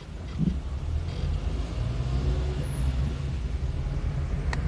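A car's engine and tyres droning low and steady, heard from inside the cabin while driving slowly, with a couple of light clicks near the end.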